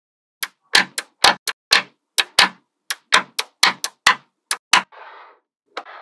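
Small magnetic balls snapping together in a quick series of sharp clicks, about three a second. Near the end comes a brief, softer scraping rattle.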